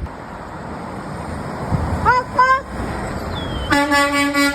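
Road traffic passing, then two short rising toots, then a truck's air horn sounding one long, steady blast about three and a half seconds in.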